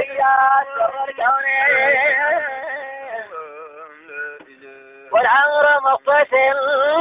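A man singing an Arabic devotional chant in long, ornamented held notes. The melody softens about three seconds in and comes back strongly about five seconds in.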